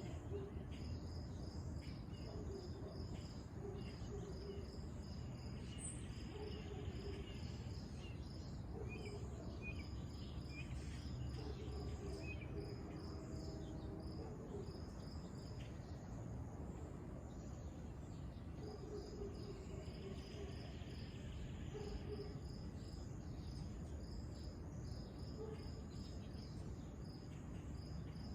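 Crickets chirping in a steady, evenly spaced rhythm over a low background rumble, with a few fainter calls mixed in.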